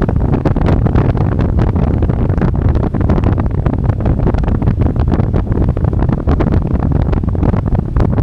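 Wind buffeting the microphone of a rider on a moving electric motorbike: a loud, steady low rumble with rapid gusty flutters.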